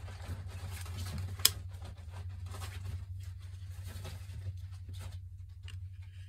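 Soft rustling and small clicks over a steady low hum, with one sharp click about one and a half seconds in.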